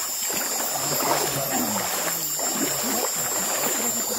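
River water gurgling and splashing continuously, over a steady high-pitched drone.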